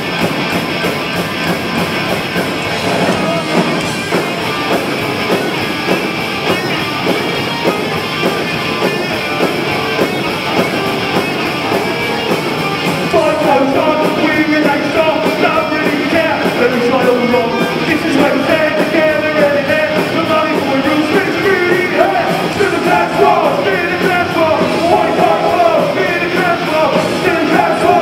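Punk rock band playing live and loud: electric guitars and drums, with a shouted, sung lead vocal coming in about halfway through.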